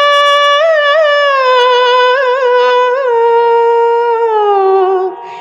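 Interlude music: a single flute melody holding long notes with small ornamental turns, stepping slowly down in pitch over a steady drone. It stops about five seconds in.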